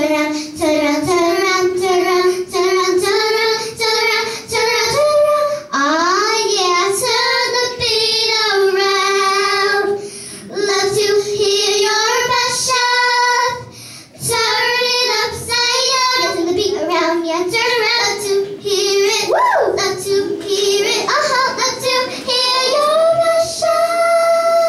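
Two young girls singing a pop song together into handheld microphones, ending on a long held note near the end.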